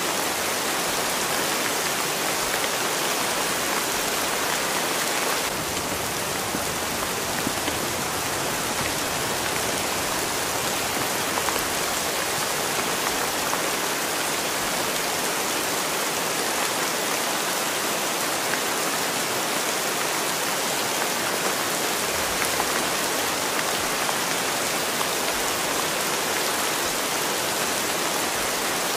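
Steady rain, an even hiss of rainfall without let-up.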